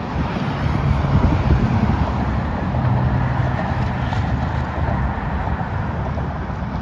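Strong wind buffeting the microphone over the steady rumble of road traffic on the bridge deck.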